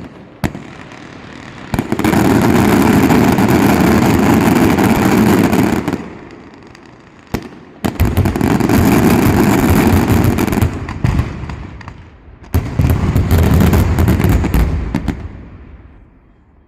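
Daytime fireworks: a few single bangs, then three long volleys of rapid-fire bangs and crackling with short lulls between them, dying away near the end.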